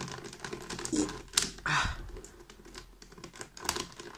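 Plastic pieces of a ShengShou magnetic speedcube clicking as the cube is handled and its pieces pushed about, with a quick run of small clicks and one louder rattle a little under two seconds in.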